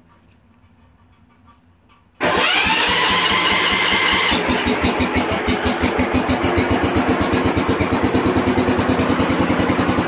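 A John Deere 140 garden tractor's single-cylinder Kohler engine starting about two seconds in, then settling into a steady, evenly pulsing run.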